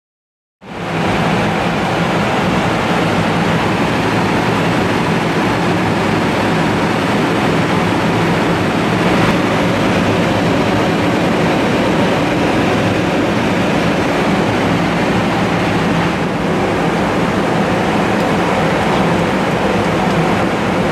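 Steady cabin noise in the cockpit of an Embraer Legacy 600 business jet in flight on the landing descent: an even rush of airflow with a low steady hum. It starts abruptly about half a second in.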